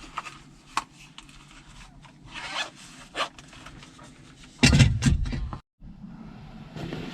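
Rubbing, scraping and clicking of gear being handled, with a louder rustling, scuffing burst about two thirds of the way through that cuts off abruptly.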